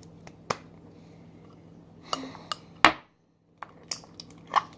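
Scattered clinks and knocks of kitchen utensils and containers being handled, the loudest a little under three seconds in, followed by a brief dead silence.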